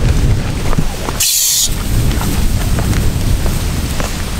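Wind buffeting the microphone: a steady, loud low rumble, broken briefly about a second in by a short high hiss.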